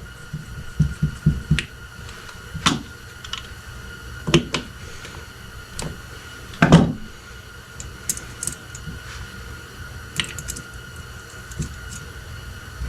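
Scattered light clicks and taps of small carburetor parts and tools being handled on a workbench, with one louder knock about seven seconds in.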